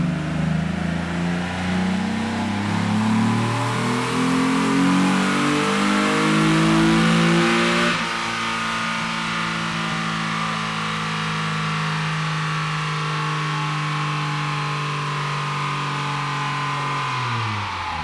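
Mazda KLZE 2.5-litre V6 on a chassis dyno, revving up under full throttle for about eight seconds to around 7,300 rpm. The throttle is then closed abruptly, and a quieter, steady tone holds for about nine seconds before winding down near the end.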